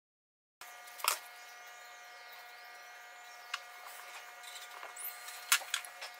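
A steady faint electrical hum, with a few light clicks and taps as hands handle cotton wadding and a green sheet; the loudest click comes about a second in, a couple more near the end.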